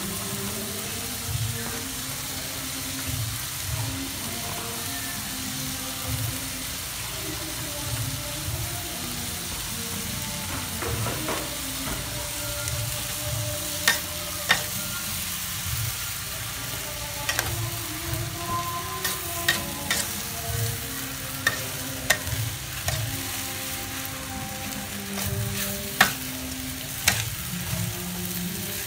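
Noodles, dried shrimp and vegetables stir-frying in a metal wok, sizzling steadily. Partway through, a metal spatula starts scraping and clacking against the wok with sharp knocks, at times about one a second.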